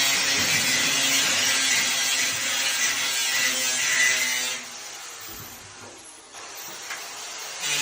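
A power tool running with a loud, steady whir; it drops to a much quieter sound a little over halfway through and starts up loud again at the very end.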